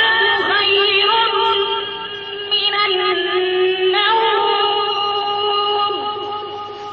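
A recorded azan, the Islamic call to prayer, sung by a single voice and played from an old azan alarm clock's speaker: long held notes with wavering ornaments, with no high treble, fading somewhat near the end.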